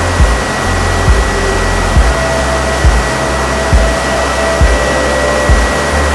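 Steady in-flight noise of a Rans S6 light aircraft: engine and propeller drone mixed with rushing wind, with a thin steady whine on top. A low thump comes evenly about once a second.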